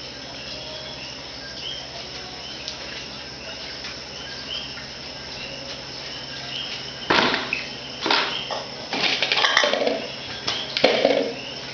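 A cricket chirping steadily in the background, about once a second. In the second half, several loud, short noises break in.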